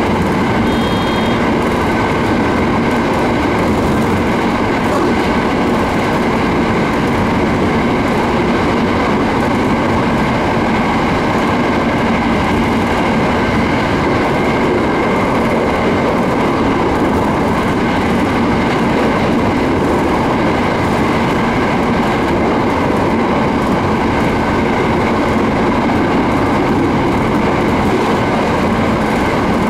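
JR East 701 series electric multiple unit running steadily between stations: continuous wheel-on-rail running noise with a faint steady whine.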